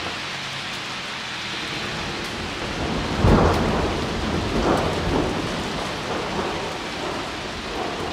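Steady rain falling on a wet street. About three seconds in, a deep rumble starts suddenly and fades over the next couple of seconds.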